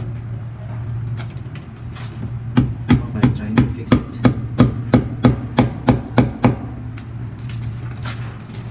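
A hammer striking repeatedly at the broken concrete wall around a newly laid PPR water pipe: a run of about a dozen sharp blows, roughly three a second, starting about two and a half seconds in and stopping near six and a half seconds.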